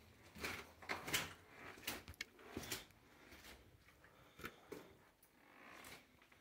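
Faint, irregular scuffs and crunches of footsteps on a loose rocky mine-tunnel floor, several to a couple of seconds, mixed with scrapes of movement.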